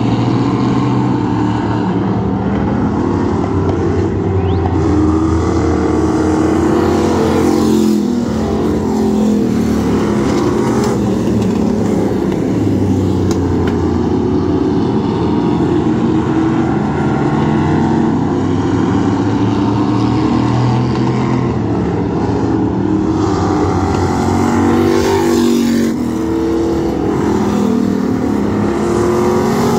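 Several dirt-track stock car engines racing together, their notes overlapping and rising and falling as the cars accelerate down the straights and ease off into the turns.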